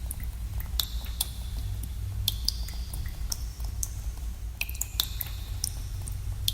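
Water drops falling in a cave, an irregular patter of plinks, some ringing briefly with a short high ping, over a steady low rumble.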